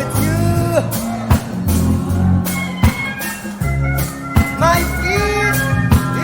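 Blues-rock song with a sung vocal, guitar, bass and a steady drum beat.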